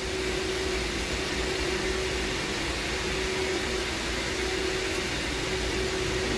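Steady whir and hum of running industrial HVAC fan equipment, with a constant low tone under a wide rushing noise.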